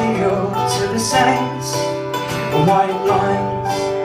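Acoustic guitar strummed in a steady rhythm, with a man's voice singing over parts of it.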